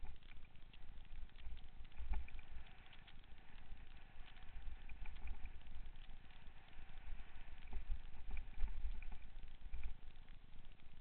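Mountain bike ridden along dirt singletrack, heard from a helmet-mounted camera: wind buffeting the microphone in an uneven rumble, with scattered clicks and rattles from the bike and tyres on the trail.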